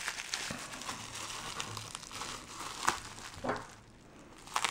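Plastic bubble wrap crinkling and rustling as it is squeezed and handled, with a few sharper clicks in the second half.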